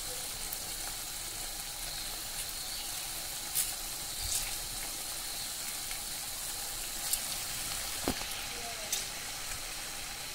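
Cowpeas, onions and green chillies sizzling in oil in an aluminium wok-style pan: a steady frying hiss with a few sharp clicks scattered over it.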